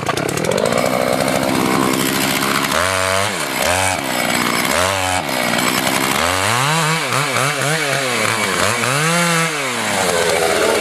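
Two-stroke chainsaw running loudly, its engine speed dropping and rising again several times, with quick repeated swings in pitch in the second half.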